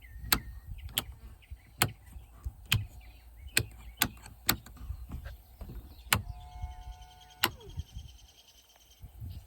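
A series of about nine sharp clicks or knocks at irregular spacing, with a short steady multi-pitched tone sounding for a second or so about two-thirds of the way in.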